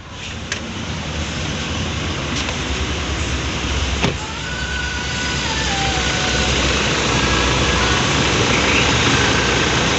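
Toyota Fortuner engine idling with the air-conditioning compressor running, growing louder over the first few seconds, with a single sharp click about four seconds in. There is no growling from the AC compressor, which has just been repaired.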